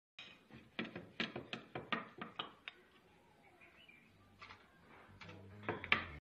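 Wooden rolling pin knocking and clacking against a wooden board while dough is rolled out, about ten quick knocks in the first three seconds, then a few louder ones near the end.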